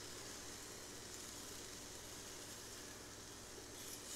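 Shrimp sizzling on the hot grill grate of a Ninja Foodi air fryer as they are turned over: a faint, steady hiss with a low hum underneath.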